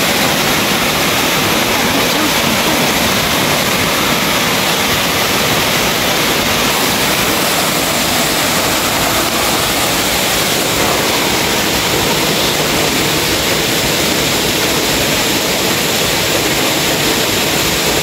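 Waterfall pouring over a rock face into a rock pool: a steady, unbroken rush of falling water.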